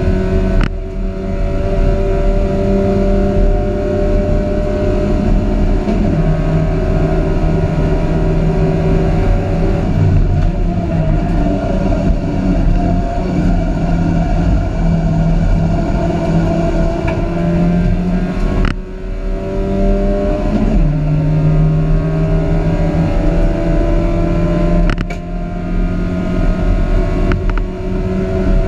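Dacia Logan race car's engine, heard from inside the cockpit at racing speed, its note climbing slowly through the revs under full throttle. The note breaks off briefly with a click three times: about a second in, about two-thirds of the way through, and near the end.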